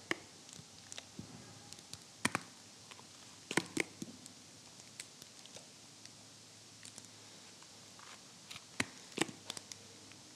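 Faint handling of a plastic mayonnaise squeeze bottle and burger buns on a wooden cutting board: a handful of short sharp clicks and taps spread through an otherwise quiet stretch.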